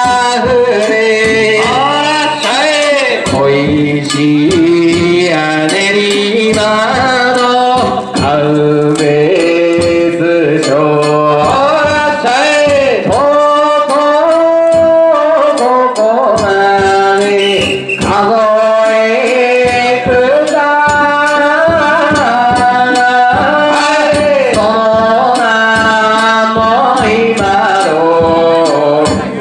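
A Kawachi danjiri hiki-uta (float-pulling song): a man sings long, wavering, ornamented phrases into a microphone over a loudspeaker, with short sharp clicks or claps running beneath the voice.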